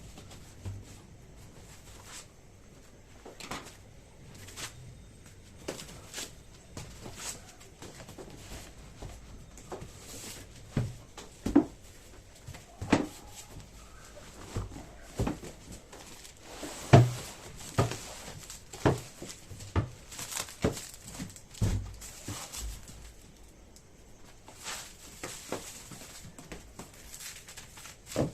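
Irregular knocks, taps and rustling as a boxed wooden side table and its packaging are handled and unpacked, with a few louder knocks in the middle.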